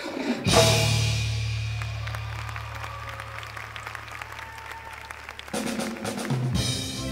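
Indoor percussion ensemble strikes one loud impact about half a second in: cymbal crash and bass drum with a low bass note held under it, ringing and slowly fading for several seconds. Near the end, cymbals and drums come back in with fast strokes, followed by pitched low notes.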